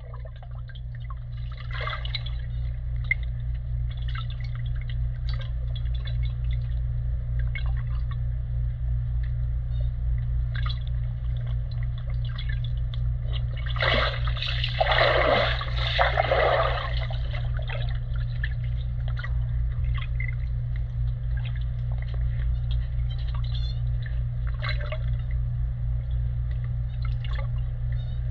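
Pool water splashing and sloshing over a steady low hum, with small drips and splashes throughout and a louder bout of splashing about halfway through.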